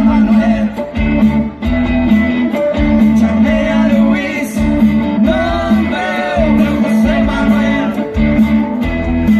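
Live rock band playing: electric guitars, bass and drums, with a melody line carried over them.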